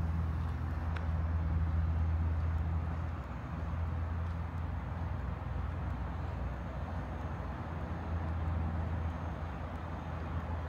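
Steady low hum of an engine running at a constant speed, with outdoor background noise over it.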